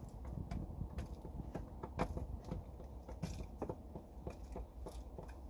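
Chickens pecking and scratching in wood shavings on the wooden floor of a brood box: irregular light taps and crunches, one sharper tap about two seconds in.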